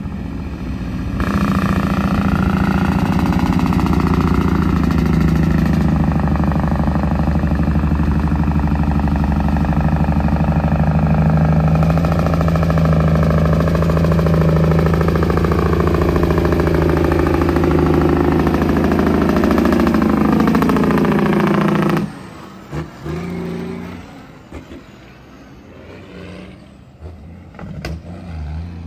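Diesel engine of a heavily loaded dump truck running hard and loud as it comes down a steep dirt grade, its pitch slowly falling. About 21 seconds in the loud engine sound stops suddenly, leaving a quieter, uneven engine sound as the truck pulls away.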